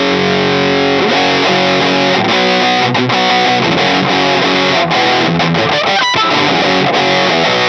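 Electric guitar played through a Boss DS-2 Turbo Distortion pedal: distorted chords and notes that change about once a second.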